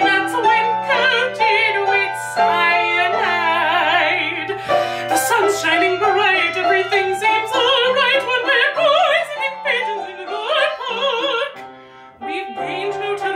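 Operatic soprano singing with a wide vibrato and quick ornamented runs, over piano accompaniment. Near the end the sound dips briefly before the singing resumes.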